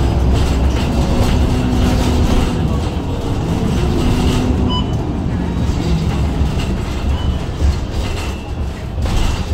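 Cabin noise of a MAN Lion's City G articulated bus running: a steady low drone from its MAN D2066 diesel engine and Voith DIWA automatic transmission, with road rumble. A short electronic beep sounds about five seconds in.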